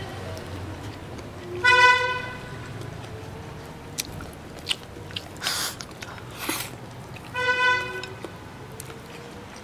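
Close-up chewing with small clicks and crunches of eating. Two short toots of a vehicle horn sound over it, about six seconds apart, and they are the loudest sounds.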